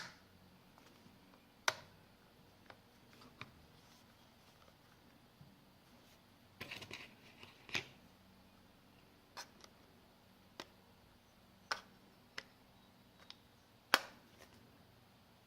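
Scattered small clicks and taps, about a dozen at irregular intervals with a short flurry about seven seconds in, from the parts and tools of a smartphone being handled during disassembly.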